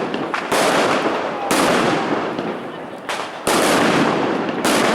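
Fireworks going off: four sudden loud bangs in a row, each trailing off into a fading crackle and rumble before the next.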